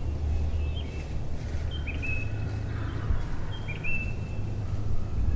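A small bird singing a short high whistled phrase that steps down in pitch, repeated roughly every second, over a steady low rumble.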